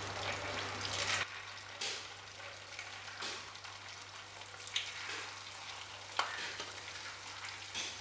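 Aval (poha) murukku spirals deep-frying in hot oil in a nonstick pan: a steady sizzle, with a sharper burst of sizzling every second or so as each fresh piece goes into the oil.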